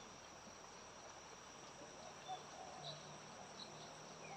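Faint, steady, high-pitched insect chorus, with a few faint short chirps over it.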